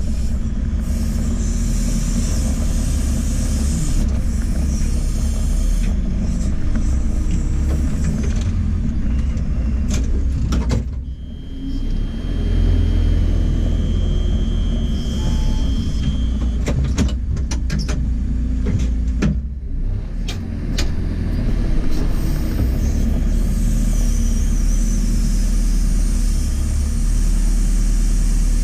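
JCB 4CX backhoe loader's diesel engine running steadily under working load, with the hydraulics in use. The engine note dips briefly a little under halfway through, then a thin steady whine sounds for about five seconds, followed by a cluster of sharp metallic knocks.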